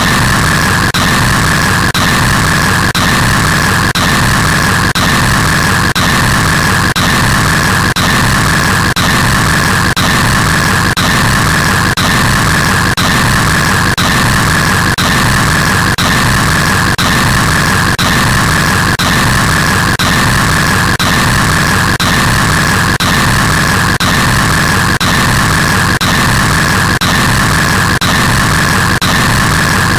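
Extremely loud, harsh white-noise-like static, steady and unbroken, with a piercing band in the upper middle of the range. There is a faint regular pulse about once a second.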